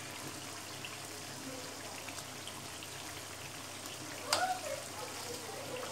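Chicken karahi curry simmering gently in a pot on low heat, a soft steady bubbling and trickling. Metal tongs clink once against the pot about four seconds in.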